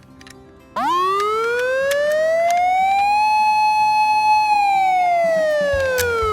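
Toy ambulance's electronic siren switching on abruptly under a second in: one slow wail that rises, holds at its top for about a second, then falls again, with a low rumble coming in near the end.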